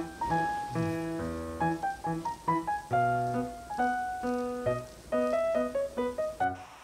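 Background music: a simple piano melody of short, separate notes.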